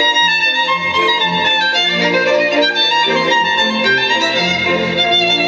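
Music with a lead violin, played back through the Outdoor Sound portable speaker under test.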